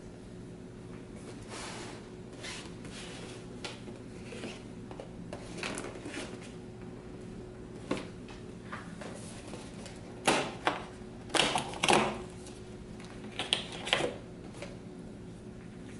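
Hands handling a cardboard advent calendar box: soft rustles and taps, then a run of sharp clicks and snaps, loudest between about ten and fourteen seconds in, as a perforated cardboard door is pushed open and an aluminium Nespresso coffee capsule is pulled out of its slot.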